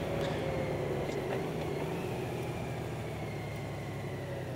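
Honda Gold Wing motorcycle's flat-six engine running steadily as the bike rolls along. Its pitch falls gently as it slows, over a haze of road and wind noise.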